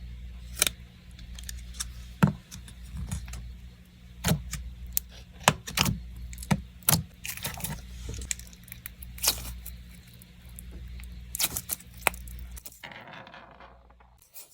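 Ice-cold clear slime being handled and squeezed, giving irregular sharp clicks and pops, over a low steady hum that stops about 13 seconds in.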